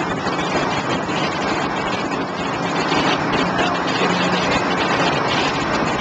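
Contender 27 center-console boat under way: its outboard motors run steadily under a constant rush of wind and water.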